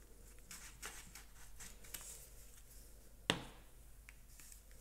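Faint rustling and tapping of cardstock being handled and pressed together, with one sharp knock about three seconds in.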